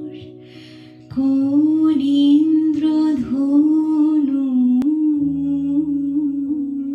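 A woman singing a Bengali song, accompanied by held piano chords. The piano fades alone at first and her voice comes in about a second in.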